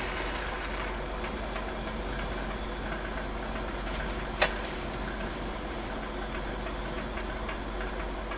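Harris 50-3 oxy-acetylene welding torch flame burning with a steady hiss. A single sharp click comes about halfway through.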